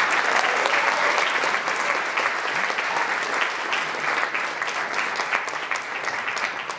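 Audience applauding, dense steady clapping that eases off slowly toward the end.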